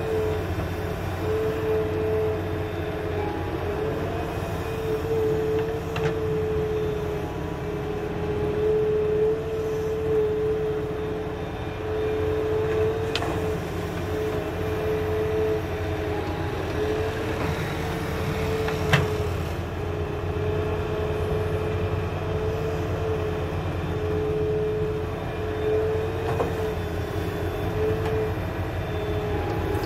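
Doosan wheeled excavator's diesel engine and hydraulics running steadily with a constant whine over a low rumble while it digs earth and loads a dump truck, with a few sharp knocks.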